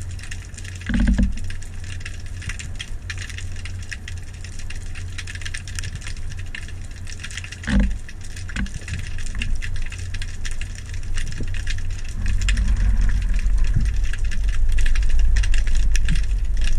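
Underwater sound picked up through a camera housing: a steady low rumble with constant fine crackling, a dull thump about a second in and another near eight seconds. The low rumble grows louder from about twelve seconds on.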